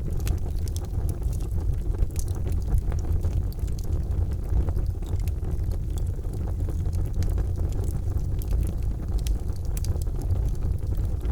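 Wood fire in a fireplace crackling: a steady low rumble of the flames with irregular sharp pops and snaps scattered throughout.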